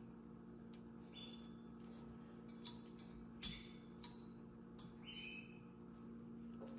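Three sharp clicks in the middle as Atmos clock parts are handled, over a steady low hum. A bird chirps twice in the background, once about a second in and again near the end.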